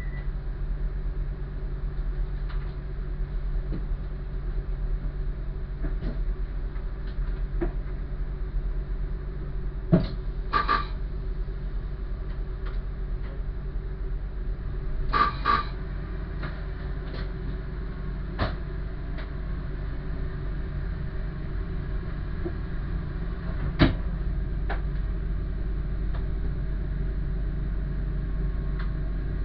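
Diesel train's engine idling steadily, heard from inside the cab while the train stands at a station platform, with scattered clicks and knocks and two short bursts of beeping about ten and fifteen seconds in. After a sharp knock a few seconds before the end, the engine gets louder as the train starts to pull away.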